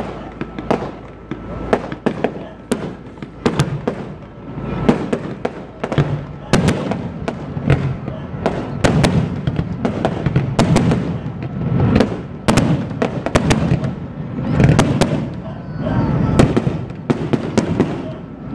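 Fireworks display: aerial shells and fountains going off in a fast, uneven run of sharp bangs, several a second.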